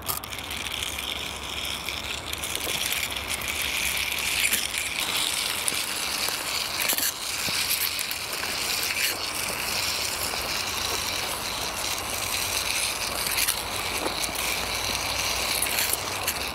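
Toy car's small wheels rolling and rattling over rough forest ground as it is pushed by hand: a continuous crackly clatter of many small clicks.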